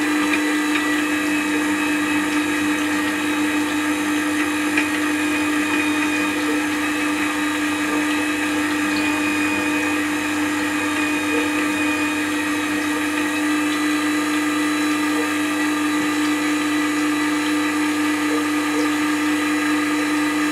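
Record Power WG250 wet stone sharpener's motor running with a steady hum, driving the leather honing wheel while a spindle roughing gouge is honed on it in a jig.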